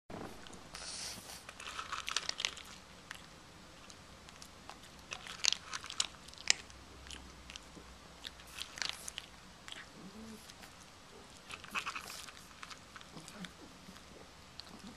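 Pekingese dog chewing and crunching something hard taken from a hand, in several bursts of crisp crunches a few seconds apart.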